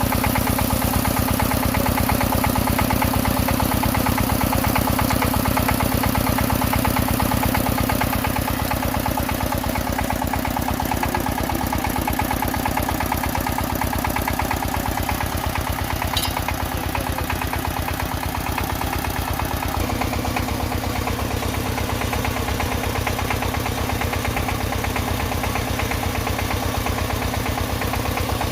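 Engine of a soil-testing drill rig running steadily, with an even rapid firing beat; it gets slightly quieter about eight seconds in.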